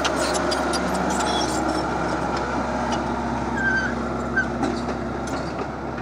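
Crawler bulldozer's diesel engine running steadily at close range, with a couple of short high squeaks about halfway through.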